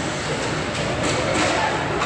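Ice hockey play on a rink: a steady rumbling din of skating and play, with a few light knocks.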